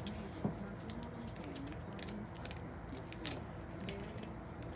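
Scattered soft clicks and rustles of hands handling a piece of fabric.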